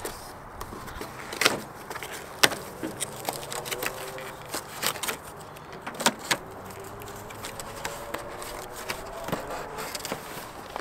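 A cardboard box being opened by hand: flaps and tabs pulled apart and packing paper handled, giving scattered taps, clicks and rustles. A few of the taps are sharp and loud, the loudest about two and a half seconds in.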